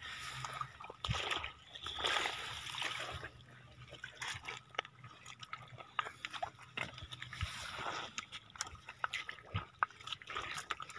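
Shallow water splashing and sloshing around feet and hands on a wet tidal flat, in uneven patches, with scattered small clicks and knocks as shells are gathered by hand.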